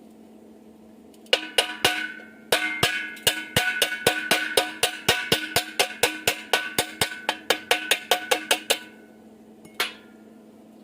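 Hammer striking thin steel angle iron rapidly, about four blows a second for some seven seconds, each blow ringing metallically, then one last strike about a second later.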